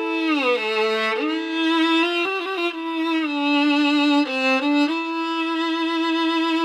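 Solo violin playing a slow melody with slides between notes, ending on a long held note. This is the instrumental introduction before the song's singing begins.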